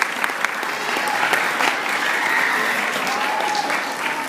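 An audience applauding, with a few voices among the claps; the clapping eases a little near the end.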